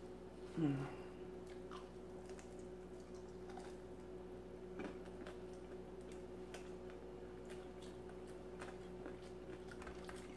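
Quiet close-up chewing of fried chicken wings, with small scattered mouth and finger clicks, over a steady faint hum.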